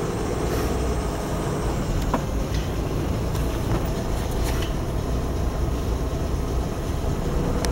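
Steady low engine and road rumble heard from inside a car cabin while it follows a Dutra D4K tractor on the road, with a couple of faint clicks.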